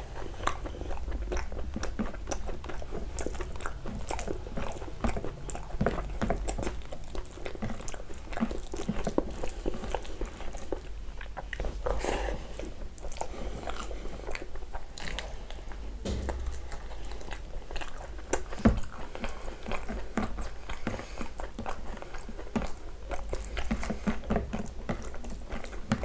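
Close-up eating sounds of a person chewing and biting chicken and rice: mouth sounds with frequent small clicks, and one louder click about two-thirds of the way through.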